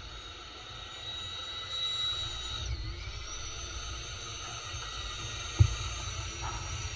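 Sun Joe TJ604E 13.5-amp electric tiller running, its motor whine dipping in pitch and recovering about three seconds in as the tines take on load in the soil, over a low rumble. A single thump comes a little over five seconds in.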